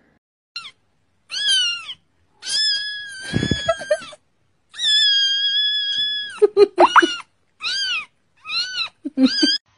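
Very young kitten mewing over and over in high-pitched cries, two of them long and drawn out, the rest short and quick. A brief low rumble sounds under the cries about three and a half seconds in.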